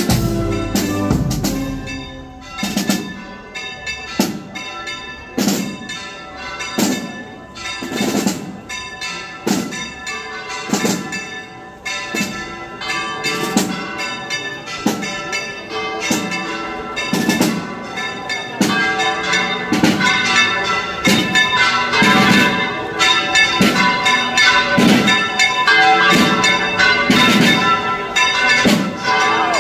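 Church tower bells rung in a volteo, swung full circle in the Spanish manner, striking evenly about every second and a half with long ringing tones. About halfway through the strokes come thicker and overlap, as more bells join, and the ringing grows louder.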